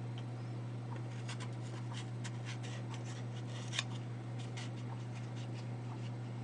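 Kitchen knife paring the skin off a kohlrabi held in the hand: a run of short, irregular scraping strokes. A steady low hum sits underneath.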